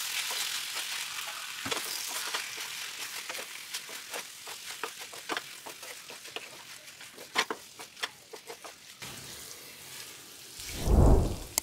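Hakka noodles and vegetables sizzling in a pan as a spatula stirs and tosses them, with scattered clicks and scrapes of the spatula against the pan. The sizzle drops away about nine seconds in, and near the end a loud, deep whoosh swells up and fades.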